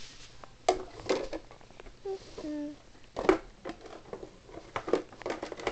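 Handheld camera being handled close to the carpet: scattered taps, clicks and rustles. There is a brief faint murmur about two seconds in.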